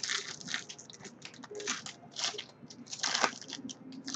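Foil wrapper of a football trading-card pack crinkling and tearing as it is opened by hand: a run of irregular crackles, the loudest about three seconds in.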